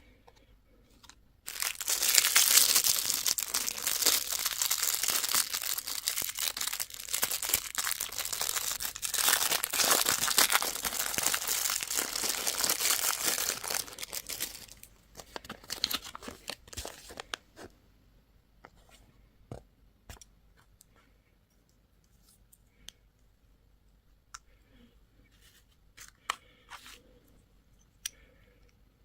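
Crinkly wrapper being torn open and crumpled for about thirteen seconds, typical of unwrapping a lollipop or surprise egg. After it come a few scattered small clicks and rustles.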